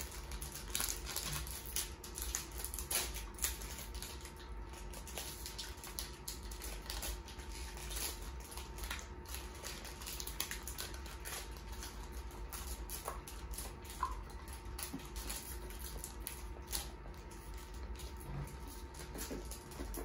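Crinkling and rustling of foil baseball-card pack wrappers being opened and cards being handled: a steady run of small crackles and clicks, over a faint steady hum.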